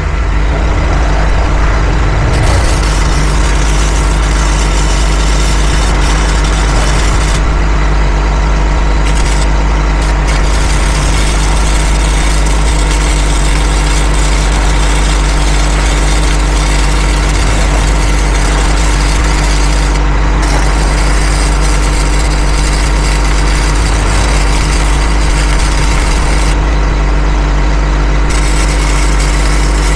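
Engine idling steadily, with stretches of MIG welding arc crackle over it that stop briefly a few times as the welder pauses between beads.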